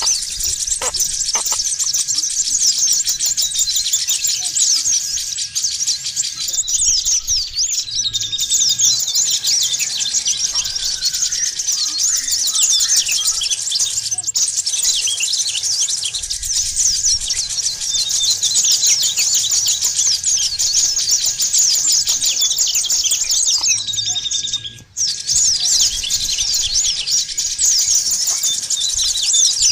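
Dense chorus of many small songbirds chirping and trilling rapidly and continuously at high pitch, a bird-lure (pikat) recording of mixed birds; it briefly drops out about 25 seconds in.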